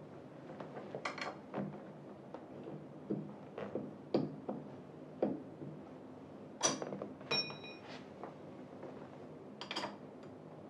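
Metal hardware clinking and knocking during chair assembly: bolts, an Allen key and metal fittings tapping against each other in irregular clicks, with one short metallic ring a little past seven seconds in.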